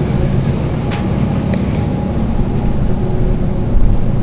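A steady low mechanical drone with a short click about a second in.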